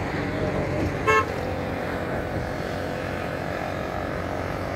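A single short horn toot about a second in, over steady low rumbling noise of passing vehicles and wind.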